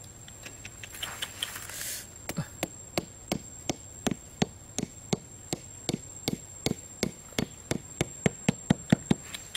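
Hatchet head knocking on the top of a bamboo stake, driving it into sandy ground: after a little handling rustle, about twenty sharp knocks at roughly three a second, coming quicker near the end.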